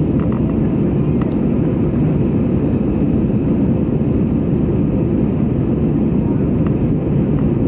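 Steady cabin noise inside an Airbus A320 airliner in flight: a dense, even low rumble of the engines and air rushing past the fuselage.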